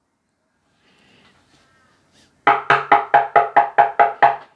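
Knuckles knocking rapidly on a table: a quick run of about ten evenly spaced knocks, roughly five a second, starting about halfway in after a near-quiet stretch.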